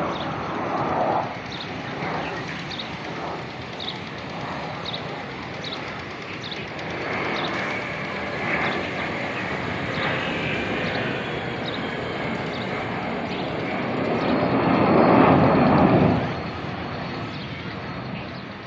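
Fighter jet flying past overhead: a steady jet roar that swells to its loudest about fifteen seconds in, then drops off suddenly.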